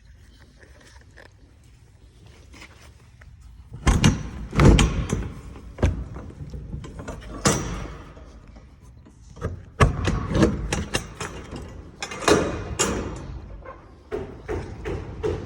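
A series of irregular thuds and knocks, beginning about four seconds in after a quiet start, with reverberation after some strikes.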